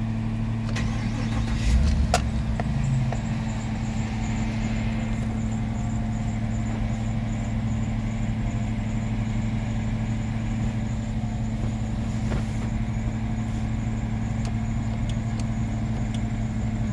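Chevrolet Suburban's 5.3-litre V8 idling steadily, heard from inside the cab. A few light clicks and a brief low thump come about two seconds in.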